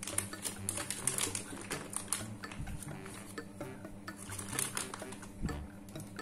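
Plastic packaging crinkling and rustling in the hands as marshmallows are taken out, an irregular rapid run of small crackles.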